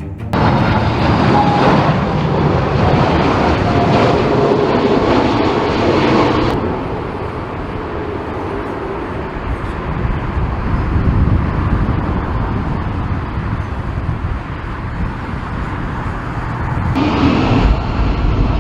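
Boeing 747 jet engines rumbling loudly on approach to land. The higher hiss drops out abruptly about six seconds in and comes back abruptly near the end.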